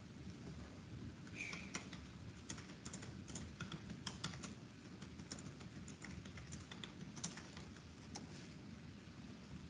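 Typing on a computer keyboard: irregular key clicks starting about a second in and stopping about eight seconds in, over a low steady hum.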